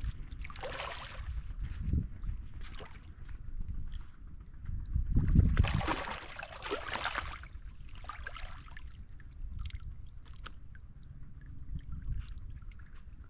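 River water splashing and sloshing in several irregular surges, the loudest from about five to seven seconds in, then fainter small splashes and clicks.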